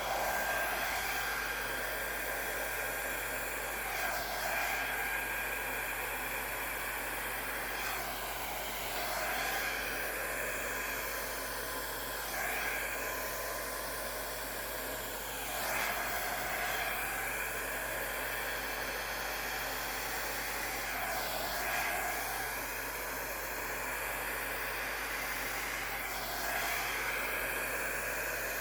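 Travel mini hair dryer, set on low and cool, blowing steadily: a rush of air with a faint motor whine. It comes on as the sound begins, and its tone swells and dips every few seconds.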